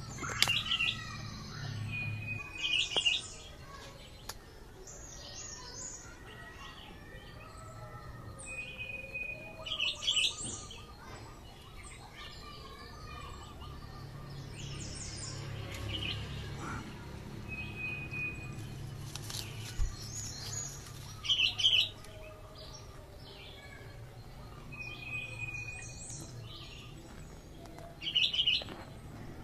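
Birds chirping: a songbird repeats a phrase of a short steady whistle followed by a quick burst of higher notes every several seconds, over a low steady background hum.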